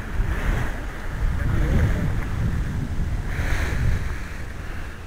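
Wind buffeting the camera microphone: a rough, gusty rumble that swells and eases.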